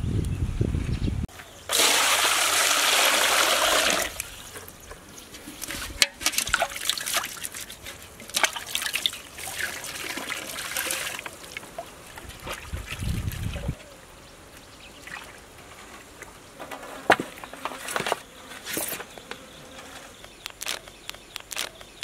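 Water poured from a bucket into a metal pot, then splashing as a plucked chicken is washed by hand in it. A loud pour lasts about two seconds near the start, followed by scattered splashes and knocks that thin out in the second half.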